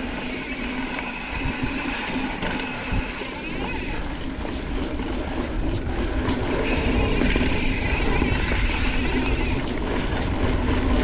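Mountain bike riding along a dirt trail: steady rolling noise with a low rumble, and a run of sharp clicks and rattles from about four to seven seconds in.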